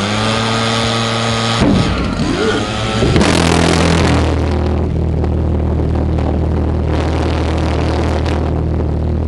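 Pulse jet engine on an ice sled being started: a backpack leaf blower forces air into it at first, with shifting pitch as it takes, and about three seconds in the jet catches and settles into a loud, steady, low drone.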